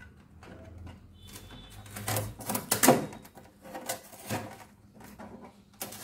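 Plastic refrigerator door shelves being unclipped and lifted out: a scatter of light plastic clicks and knocks, the loudest about three seconds in.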